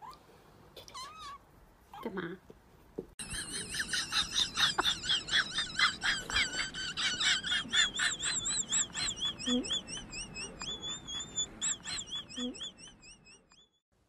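Two short animal calls, one rising and one falling, then a long run of rapid high-pitched chirps, about three or four a second, that thins out and stops near the end.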